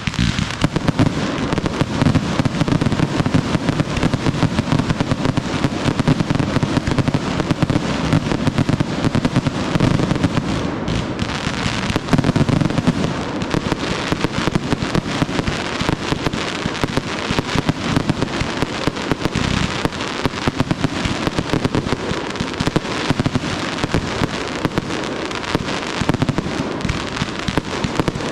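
A dense, continuous barrage of consumer firework bangs and crackles, shot after shot with no let-up: a fireworks show finale.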